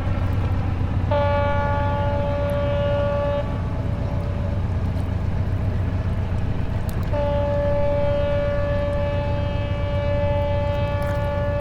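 Harbor ambience: a steady low rumble of engines and water, with two long blasts of a boat horn on one steady pitch. The first lasts about two seconds; the second starts about seven seconds in and is held longer.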